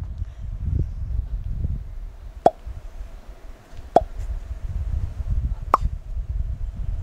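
Three short plop-like pops, about a second and a half apart, fitting the title text popping onto the screen, over a low steady rumble.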